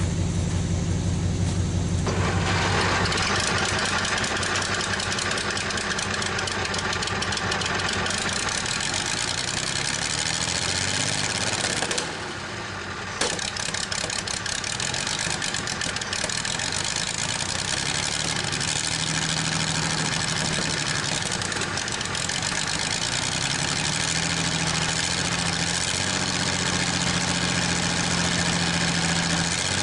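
Chrysler industrial 218 flathead six in a Worthington tractor running steadily at idle, just started for the first time in decades with oil in its cylinders, and clearing up and running better. It dips briefly quieter about twelve seconds in.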